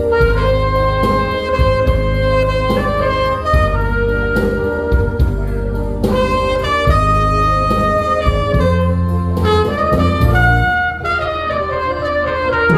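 Saxophone playing a trot melody in long held notes that step and slide between pitches, over accompaniment with a steady bass line.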